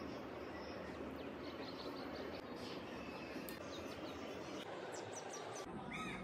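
Faint background ambience with a few short, high chirps, like birds outside.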